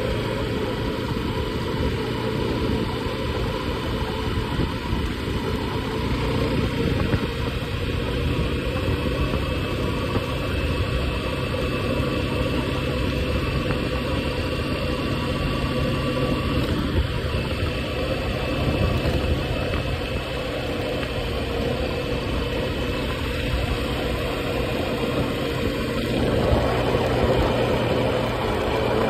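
A small vehicle's engine running steadily as it travels along a road, with a low rumble of wind and road noise.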